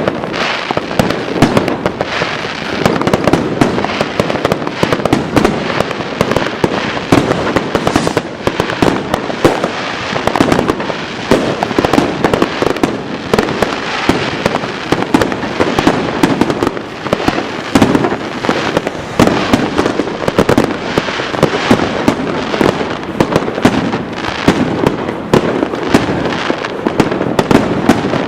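Fireworks going off all around without a break: dense overlapping bangs, pops and crackles from many rockets and firecrackers at once.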